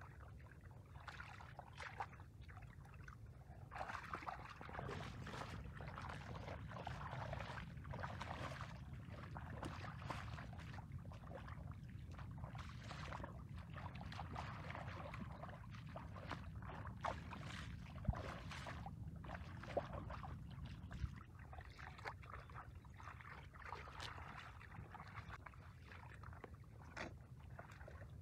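Bare feet wading and churning shallow muddy water: irregular splashing and sloshing, busiest from about four seconds in until about two-thirds of the way through, over a steady low rumble.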